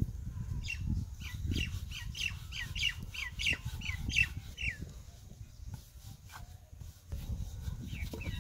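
A bird calling: a run of about a dozen short, falling notes, about three a second, which stops about five seconds in. A steady low rumble runs underneath.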